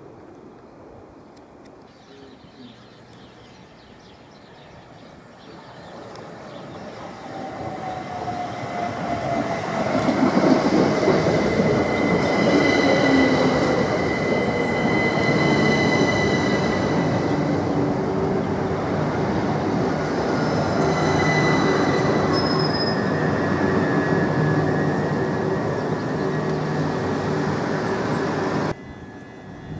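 Class 377 Electrostar electric multiple unit, two units coupled, running in close alongside the platform: faint at first, then growing loud, with a motor whine that falls in pitch as the train slows and a high squeal from the wheels or brakes, followed by a steady rumble and hum as the carriages roll past.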